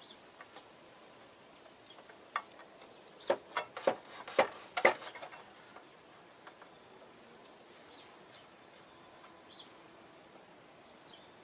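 A quick run of about seven sharp metallic clicks and knocks from handling the motorcycle's front brake caliper and pads, bunched between two and five seconds in. The rest is quiet, with a few faint short chirps.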